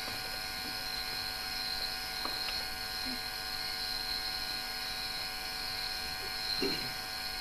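Crickets chirring steadily, as night ambience, over a constant low electrical hum.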